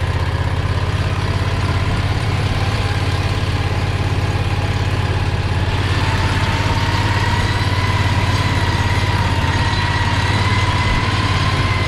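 Predator 670 V-twin engine running steadily at low revs as the go-kart limo drives in forward gear, with a faint high whine that grows clearer and rises slightly in pitch about halfway through.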